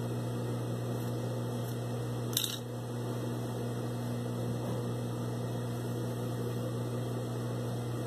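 Steady electric hum of an industrial sewing machine's motor running idle while no stitching is done, with a single short click about two and a half seconds in.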